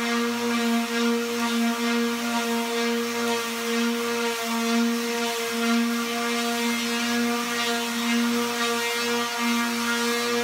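Small hand-held electric sander running against a canvas painted in oil paint and gesso: a steady, even-pitched motor buzz that holds throughout.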